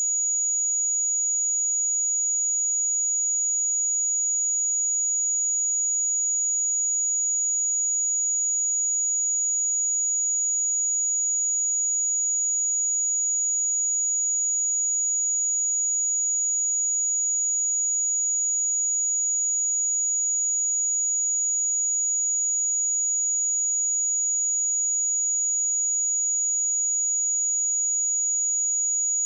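A pure 6813 Hz sine-wave test tone, one steady high-pitched whistle held at a constant level without a break.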